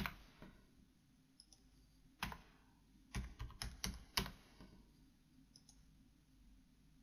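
Computer keyboard keystrokes: a single key press about two seconds in, then a quick run of about five keys between three and four seconds in.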